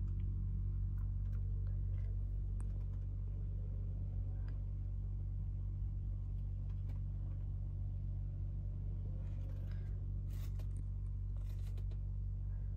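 A steady low hum with small clicks, and brief rustling between about nine and twelve seconds in, as things are handled.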